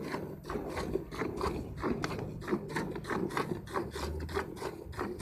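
Cow being milked by hand: jets of milk squirting into a pail in a steady rhythm, about three squirts a second.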